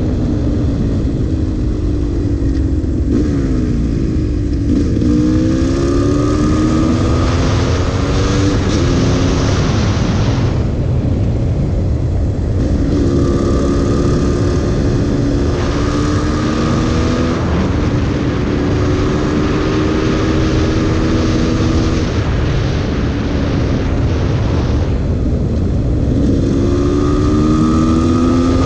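GasGas EC300 two-stroke single-cylinder engine under way, revving up through the gears and easing off between corners. Its pitch climbs in steps and drops back several times, steadier in the middle stretch and climbing again near the end.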